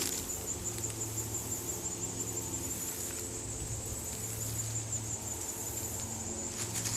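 Insects trilling steadily in a high-pitched, fast-pulsing chorus, with a low steady hum underneath and no footsteps.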